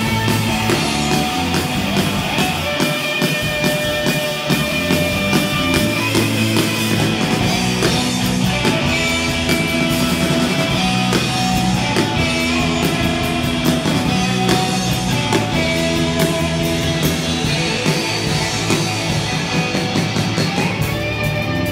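Garage rock band playing live: electric guitars, electric bass and drum kit in a steady driving rhythm.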